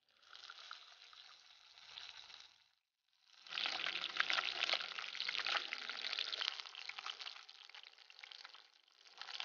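A whole fish frying in hot oil in a clay pot, sizzling with a dense crackle of spattering pops. It is softer at first, breaks off briefly about three seconds in, then comes back louder.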